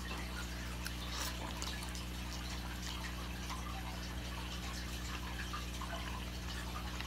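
A person eating hot instant noodles: quiet wet slurping and chewing with a scatter of small mouth clicks, over a steady low hum.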